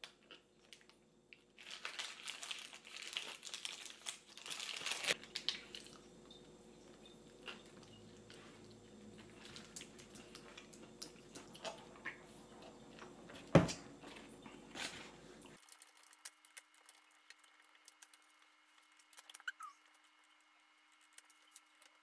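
A paper food wrapper crinkling in the hands for a few seconds while a wrap is eaten, with chewing. Then scattered quiet clicks, one sharp click past the middle, and faint laptop-key taps near the end.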